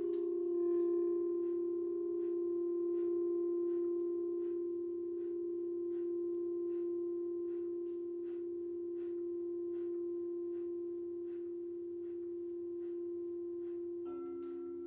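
Crystal singing bowls ringing in a long steady tone, with a new bowl note coming in near the end, under rapid, forceful breaths about twice a second: Breath of Fire breathing, the belly pumping the breath out.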